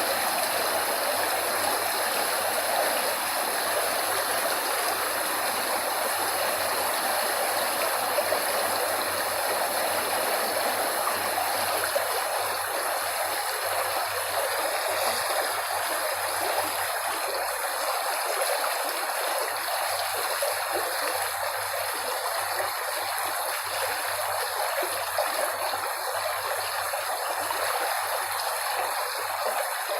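Flowing water, such as a stream, rushing steadily in an even, unbroken hiss.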